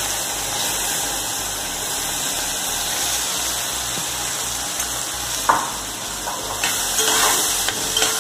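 Chopped onion sizzling as it fries in hot oil with a mustard-seed and curry-leaf tempering in an aluminium pot. In the second half a spoon stirs it, clicking against the pot a few times.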